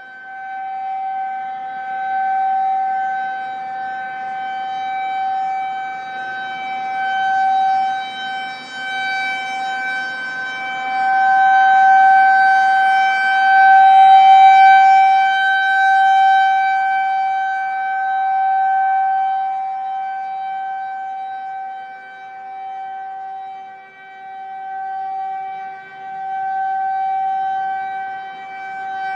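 Federal Signal 2001-130 rotating outdoor warning siren sounding its steady full-alert tone: one high pitch that swells and fades in loudness as the siren head turns.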